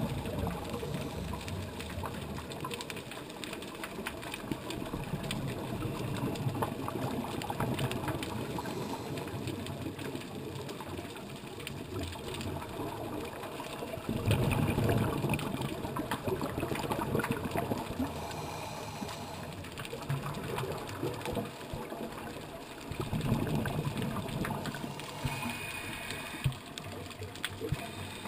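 Underwater sound on a scuba dive, heard through a camera housing: a steady muffled rumbling, with two louder gurgling surges of exhaled regulator bubbles, one about halfway through and one later on.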